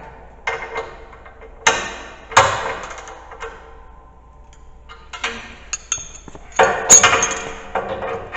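Irregular metal-on-metal strikes and clanks on steel snow plow hardware, about half a dozen, each leaving a short metallic ring. The loudest blows come near the end.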